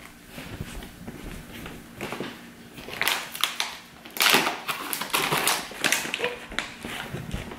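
Crinkly foil pouch being handled in someone's hands, crackling and rustling in quick bursts from about three seconds in.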